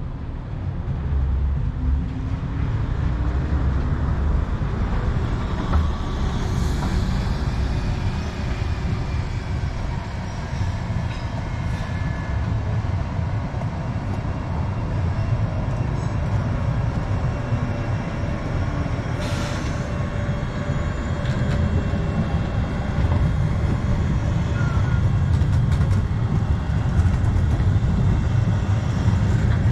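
Tram running on the rails: a steady low rumble with a faint thin whine, and two sharp clicks, about seven and about nineteen seconds in.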